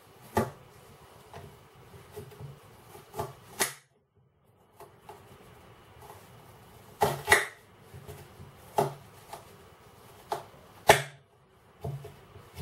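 A kitchen knife slicing through an onion and knocking against a glass chopping board: about a dozen sharp, irregular chops, some in quick pairs.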